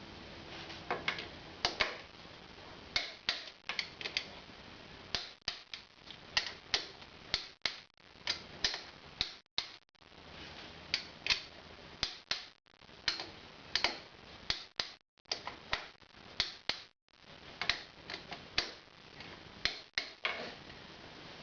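Irregular sharp metallic clicks and taps, often two or three close together, from hand tools and engine parts being handled while fitting a motorcycle rocker box.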